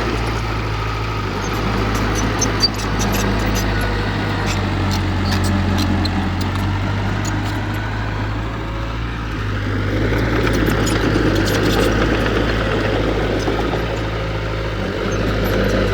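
Diesel engine of heavy earthmoving equipment running steadily with a low drone, and a single sharp knock about three seconds in.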